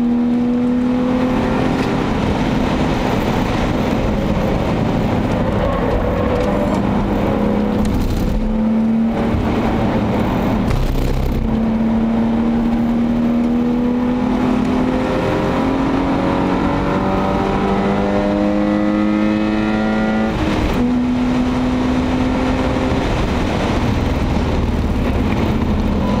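BMW 525i E34's 2.5-litre 24-valve inline-six under hard acceleration on track, its pitch climbing through each gear and dropping back at several upshifts. Heard from inside the cabin over wind and tyre noise.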